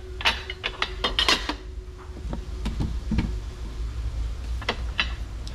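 Lengths of 3×3 cm aluminium extrusion clinking and knocking together as they are handled: a quick cluster of clinks in the first second and a half, then a few scattered knocks. A steady low hum runs underneath.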